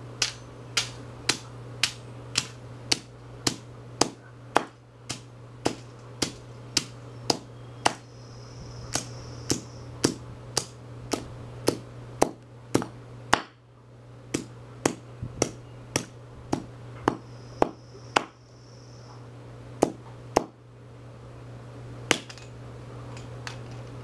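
Claw hammer beating the metal coil heating element and casing of a broken hairdryer on concrete: sharp, loud blows about two a second, then just a few scattered strikes near the end.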